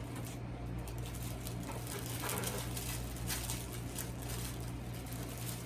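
Light rustling and small taps from toy gear being handled, over a steady low hum.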